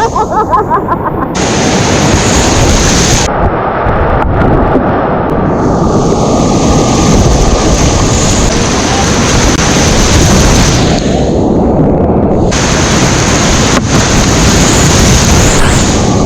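Whitewater rapids rushing and splashing against a GoPro's microphone, a loud continuous roar that turns muffled several times as the treble drops away, then comes back.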